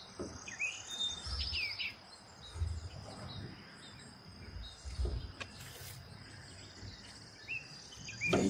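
Wild birds chirping in short sliding calls, one breaking into a quick trill about a second and a half in, over a steady high insect buzz. A few dull low bumps come about one and a half, two and a half and five seconds in.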